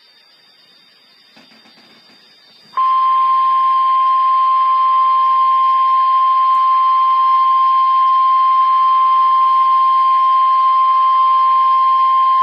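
NOAA Weather Radio 1050 Hz warning alarm tone: a single steady, loud beep at one pitch, coming in abruptly about three seconds in after faint radio hiss. It is the tone that announces an emergency alert broadcast.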